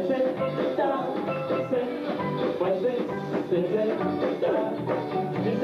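Live band playing upbeat Caribbean-style dance music, with a steel drum and a drum kit keeping a steady beat.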